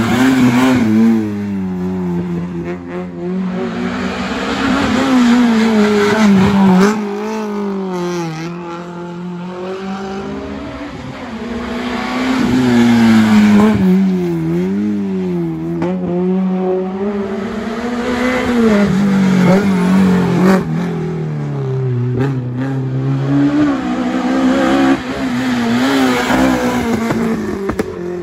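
Small hatchback rally car's engine revving hard on a winding tarmac stage, its pitch climbing and dropping again and again as it changes gear and lifts for the bends.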